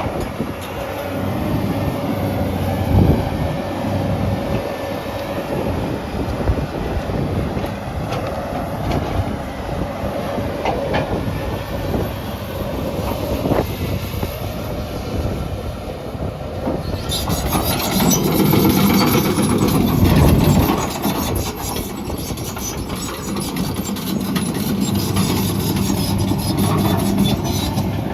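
XCMG XE210CU track excavator working, its Cummins diesel running steadily under hydraulic load amid continuous metallic clanking, rattling and squealing. The clatter grows busier and louder about two-thirds of the way through.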